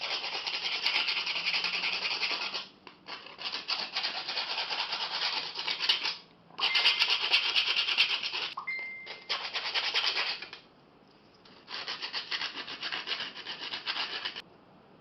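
Rubbing or sanding by hand with an abrasive, a scratchy hiss of quick strokes, in five spells of a few seconds each with short pauses between them.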